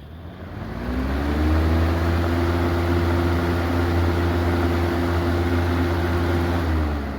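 1991 Lakewood Model 200 box fan starting up: the motor hum rises in pitch as the blades come up to speed over about a second and a half, then runs steady with a rush of air. Near the end the pitch drops and the sound fades as the fan begins to slow.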